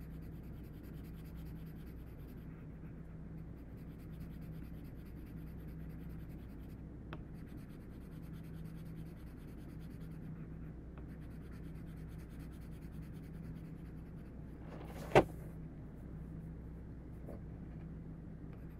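Graphite pencil scratching back and forth on paper, shading over and over with firm pressure to darken the boxes of a value scale. About fifteen seconds in there is a single sharp knock.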